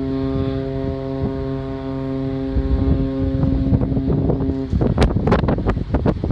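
The container ship CMA CGM Alexander von Humboldt sounds one long, steady blast on its horn as a farewell salute. The blast cuts off sharply about three quarters of the way through, and wind then buffets the microphone in gusts.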